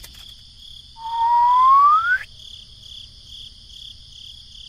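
Steady, evenly pulsing cricket chirping. About a second in, a loud whistle rises smoothly in pitch for just over a second and then cuts off suddenly.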